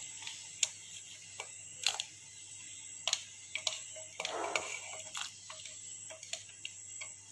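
Carrot slices dropped by hand from a steel plate into a pot of boiled water: scattered sharp clicks and small plops, about a dozen at irregular intervals.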